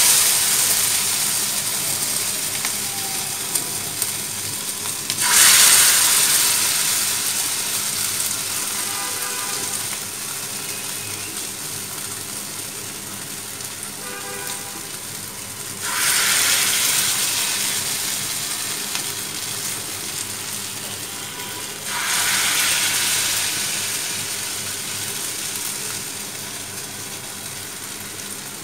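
Mashed-eggplant and rice-flour fritters frying in hot oil in a wok: a steady sizzle that flares up loudly about five, sixteen and twenty-two seconds in as each new lump of batter goes into the oil, then slowly dies down.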